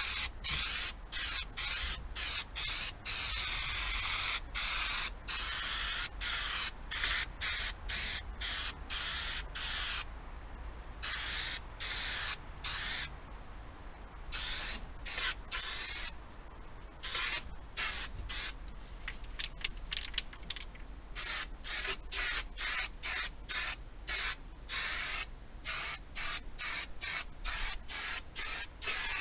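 Aerosol can of rubberized floor coating sprayed through a trigger-grip handle in a long series of hissing bursts. The bursts are longer, about a second or two each, in the first half, then turn into quick short squirts near the end.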